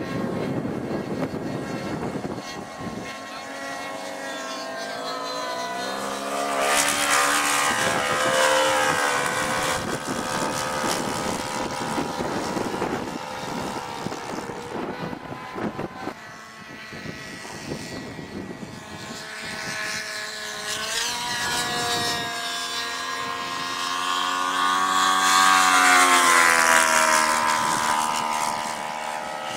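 Radio-controlled model airplane's propeller engine flying by twice. The engine drone swells to its loudest about seven seconds in and again about twenty-six seconds in, its pitch dropping as it passes.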